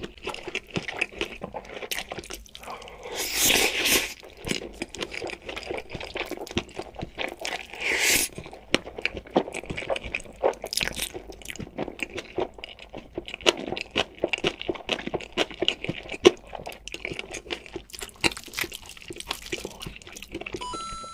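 Close-miked eating: crunchy bites and chewing with many small mouth clicks, with two louder crunching stretches, one about three seconds in and one around eight seconds.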